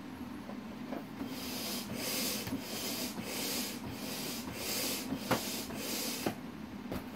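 Rhythmic hissing strokes, about two a second, as a thin-vinyl inflatable dragon toy is worked by hand, with two sharp clicks near the end over a steady low hum.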